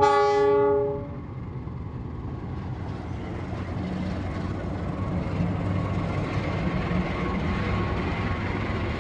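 Train horn sounding a chord that cuts off about a second in, followed by the steady rumble of the passing train, growing slightly louder.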